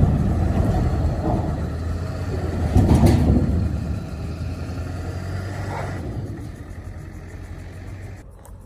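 Ford Excursion's 7.3-litre Power Stroke V8 turbodiesel working in four-wheel-drive low range, pulling a chained 40-foot shipping container. There is a sharp louder noise about three seconds in, after which the engine sound gradually eases off.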